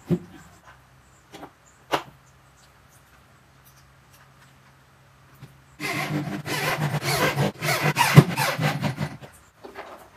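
Electric drill running for about three and a half seconds from about six seconds in, driving a screw into the top panel of a speaker cabinet. A few sharp knocks in the first two seconds as the cabinet is set down.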